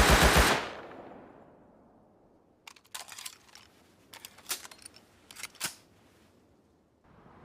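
Makeshift Thompson submachine gun sound effect: a rapid, even burst of about a dozen shots a second cuts off about half a second in and rings away. From about three seconds in there follows a run of irregular sharp clicks and clacks.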